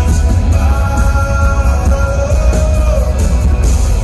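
Live band performance: a male vocalist singing over acoustic guitar, with electric guitar and keyboards behind him. It is loud, with heavy, boomy bass, as heard from the audience.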